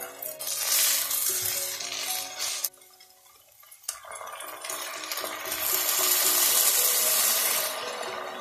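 Chopped onion and tomato paste sizzling in a hot pot as a spatula stirs them. After a short break, water is poured into the hot pot with a rising hiss and splash, over background music.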